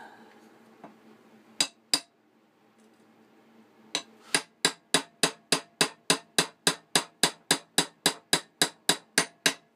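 Small ball-peen hammer tapping a 4 mm pin through a knife's antler handle: two taps, then after a pause a steady run of about twenty quick taps, roughly three a second, driving the pin all the way through.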